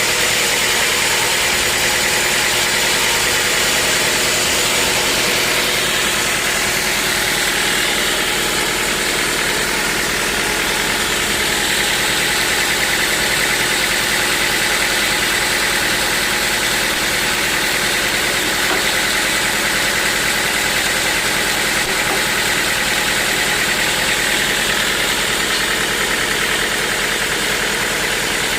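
Bandsaw sawmill machinery running steadily: a continuous engine-like drone with a high whine that holds for the whole stretch.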